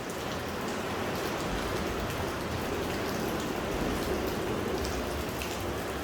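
Steady, even rushing of water, with a few faint ticks on top.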